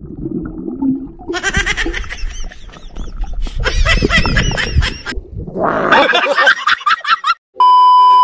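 A man yelling underwater, muffled and bubbling, heard through an underwater camera after a low water rumble. Near the end, after a brief gap, a steady high-pitched test-tone beep starts suddenly, the colour-bars edit effect.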